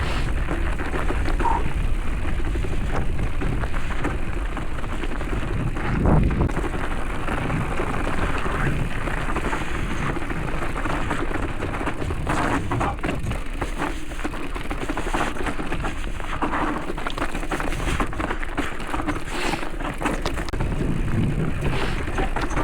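Mountain bike being ridden over a rough trail: a continuous rumble of tyres and wind on the microphone, with many small rattles and clicks from the bike.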